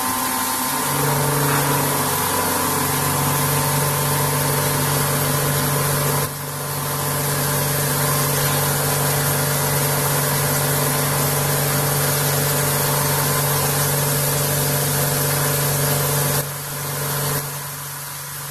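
CNC vertical machining centre running while face milling aluminium: a steady machine drone with several held tones over a hiss. The level dips sharply about six seconds in and drops again near the end.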